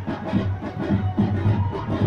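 Music with a steady, fast drumbeat.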